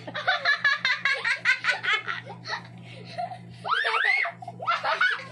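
A group laughing hard: rapid bursts of giggling, with a high squealing laugh that rises and falls about four seconds in.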